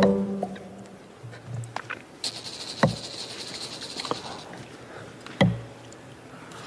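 A few sharp knocks over quiet room sound, the two loudest about three and five and a half seconds in, with a hissing, rapid rattle for about two seconds between them.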